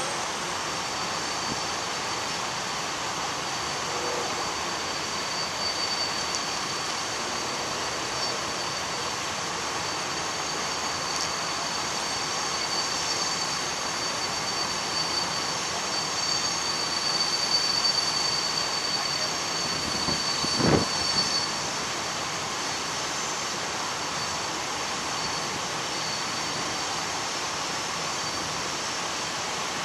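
Union Pacific freight train of open hopper cars rolling past: a steady rolling noise with a thin, high-pitched wheel squeal that swells about two-thirds of the way through, and a single low thud shortly after.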